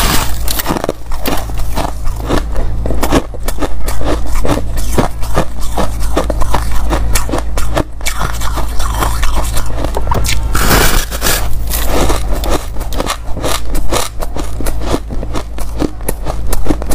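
Powdery white ice being bitten and chewed: a dense, unbroken run of crisp crunches and crackles.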